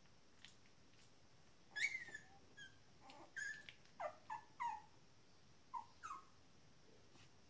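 19-day-old Shetland sheepdog puppies squeaking and whimpering: a string of short, high cries, each dropping in pitch. They start about two seconds in and stop a little after six seconds.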